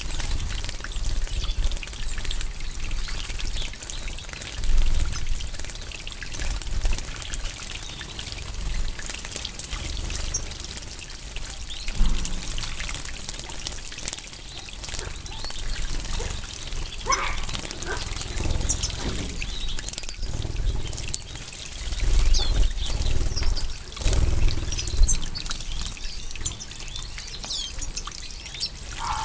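European goldfinches splashing and fluttering as they bathe in shallow water, with short high chirps and twitters from the flock throughout.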